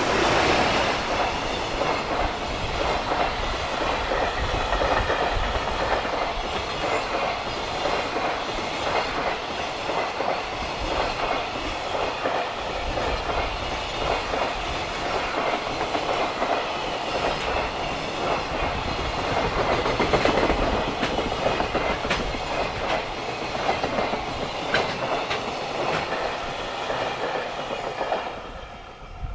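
Freight train of container wagons passing close by, its wheels clattering steadily over the rail joints. The clatter fades away near the end as the last wagons clear.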